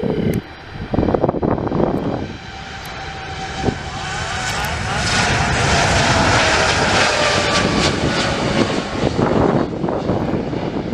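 Jet airliner's engines passing close: the noise builds over a few seconds into a loud, steady rush, with whining tones that slowly fall in pitch as the aircraft goes by.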